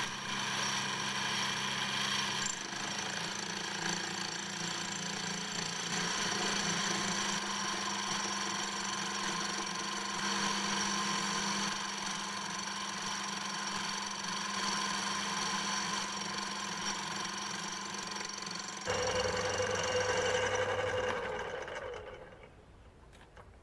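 Small metal lathe running a facing cut, with a cordless drill whirring steadily as it winds the cross-slide feed. About 19 s in the drill stops and the lathe's hum changes. The lathe is then switched off and winds down near the end.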